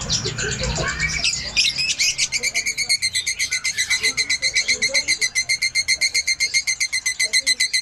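Fischer's lovebird chattering: a few varied chirps, then from about two seconds in a long, fast, even ngekek trill of sharp chirps at about nine a second.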